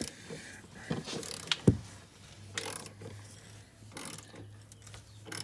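Hand tools clicking and knocking, a ratchet turning a C6 Corvette's stock ride-height adjuster bolt on the leaf spring to lower the car. A steady low hum comes in about two seconds in.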